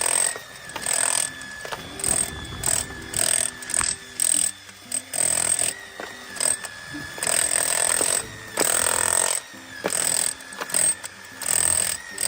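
A power tool running in short, irregular stop-start bursts of about half a second to a second each, with quieter gaps between them.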